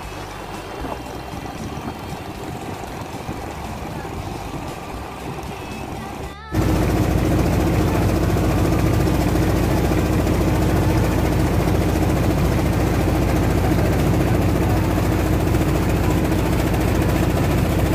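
Klotok river boat's engine running steadily under way. It is fainter at first, then from about six and a half seconds in suddenly loud and close, a constant low hum.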